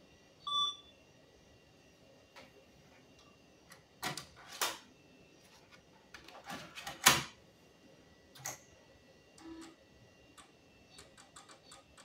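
A short beep, then a 3.5-inch floppy disk being ejected from the drive and the next install disk pushed in, with several sharp plastic clicks and clacks, the loudest about seven seconds in. Light ticking from the drive follows near the end as it starts reading the new disk.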